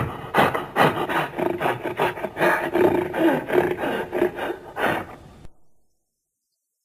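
Primitive ape vocalization sound effect: a rapid run of pulsing, rasping calls, four or five a second, that stops suddenly about five and a half seconds in.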